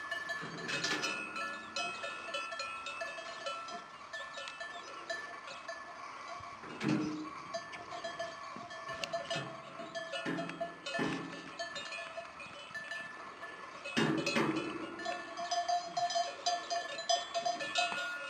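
Cowbells on cattle ringing and clanking steadily as the animals move, with several louder clanks along the way.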